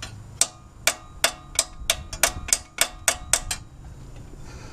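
Small hammer tapping a bolt used as a drift against a metal alternator mounting bracket, about a dozen sharp ringing taps at roughly three a second, stopping shortly before the end.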